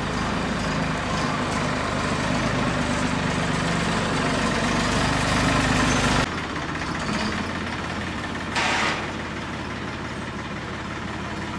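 Indo Farm 2030 DI tractor's diesel engine running at low speed as it drags a rear levelling blade over the soil floor. About six seconds in the sound drops suddenly and becomes quieter, and a brief hiss comes near the end.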